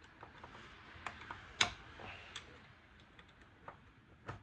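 Irregular light metallic clicks and taps from the car's shifter linkage parts being twisted and worked by hand, with one sharper click about a second and a half in and another near the end.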